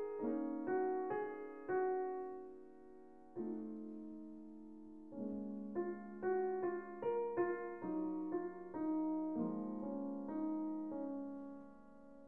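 Soft solo piano background music: gentle single notes over held bass notes, with a brief lull about a third of the way in before the melody picks up again.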